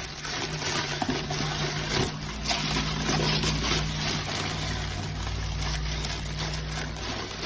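Packaging being unwrapped by hand: continuous rustling and crinkling with many small crackles as the wrapping around a product is pulled off.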